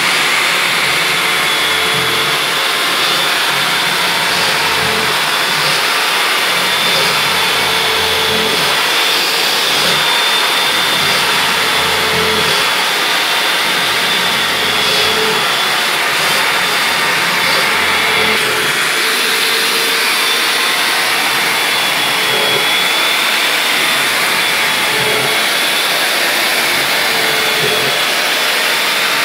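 A steady, loud motor noise with a high whine, and over it a cordless drill's motor speeding up and stopping in short runs as it countersinks holes in a black metal plate.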